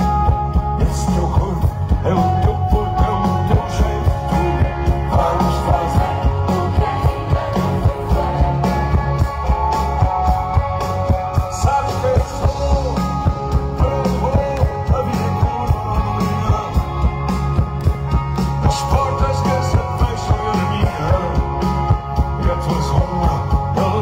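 Live rock band playing loud through a concert PA, electric guitars and piano over a steady beat, with a male singer's voice.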